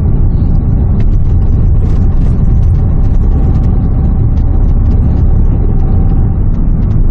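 Steady low rumble of engine and road noise inside the cabin of a 2008 Renault Samsung QM5 SUV driving along at road speed.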